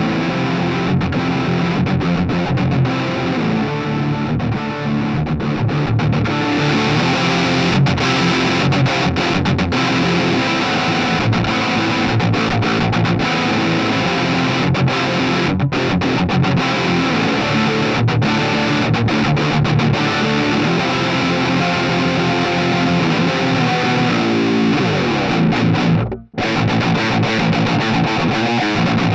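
Electric guitar played through a Harley Benton Crunch Distortion pedal: continuous distorted riffing and strumming. The tone gets brighter about six seconds in, and the playing cuts out for a moment about 26 seconds in before carrying on.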